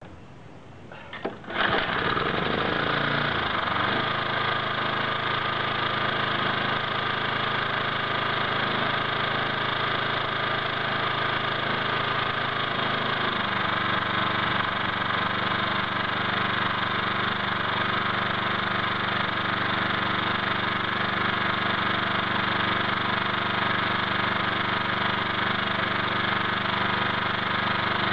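Craftsman walk-behind dethatcher's small single-cylinder petrol engine pull-started on its first start, catching after about a second and a half. Its note wavers for a couple of seconds, then settles into a steady run, with a slight change in the sound about halfway through.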